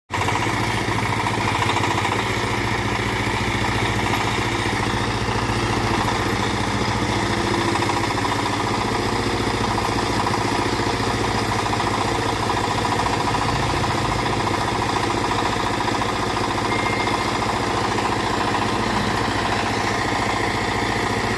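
Engine running steadily at an even speed, with no clear revving.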